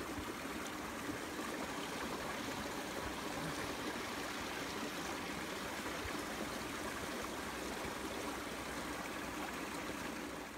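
A stream of running water, a steady, unbroken rush.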